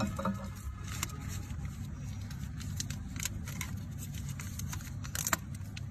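Steady low background rumble with a few short, faint clicks and taps scattered through it.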